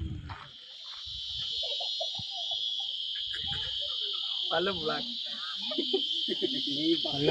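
Steady high-pitched insect chorus, growing louder about a second in and holding on.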